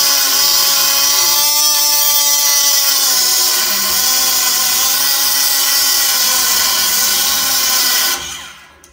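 Milwaukee 12 V cordless 90-degree die grinder with a cutting wheel cutting through steel angle iron. A high motor whine wavers slightly in pitch over the hiss of the wheel grinding the steel, then stops abruptly about eight seconds in.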